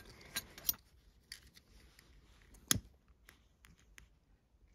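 Faint handling noise of hands working a paracord collar and small tools on a table: light rustling and small clicks, with one sharper click about two and a half seconds in.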